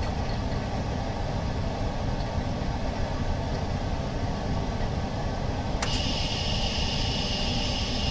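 Laminating machine running with a steady low mechanical hum. About six seconds in, a sharp click, and a steady high hiss joins the hum.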